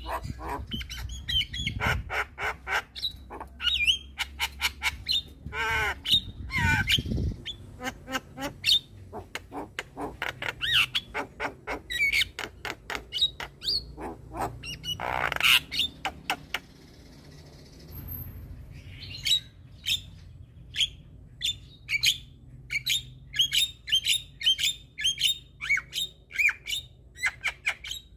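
Javan myna (jalak kebo) singing: rapid runs of sharp clicking and chattering notes mixed with harsh squawks, with a short lull about two-thirds of the way through before the chatter starts again.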